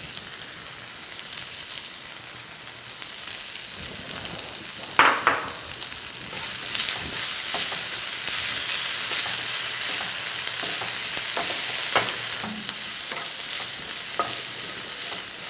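Chopped onions and green chillies sizzling in oil in a nonstick frying pan, stirred with a wooden spatula. A brief loud burst about five seconds in, then steady frying with the spatula scraping and tapping against the pan.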